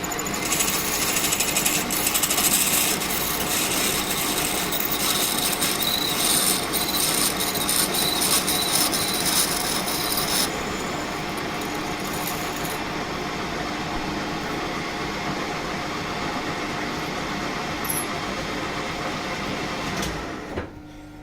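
Lathe running while a drill bit is fed into the end of an 8 mm stainless steel rod, opening up the tapping hole for an internal M6 thread to give the tap more clearance. A harsh high cutting hiss lasts about the first half, then only the machine's running noise is left until it stops shortly before the end.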